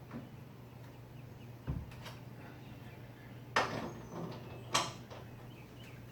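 Hand tools working on the car's bolts: a dull knock, then two sharp metallic clicks about a second apart, each with a short rattle after it.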